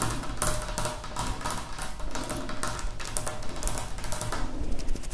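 Fingertips and nails tapping on glass jars and an oil bottle in quick, irregular taps, as an ASMR tapping trigger.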